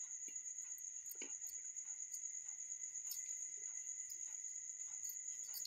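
Steady high-pitched trill of crickets, with a few faint soft taps as pieces of onion are dropped onto the pizza.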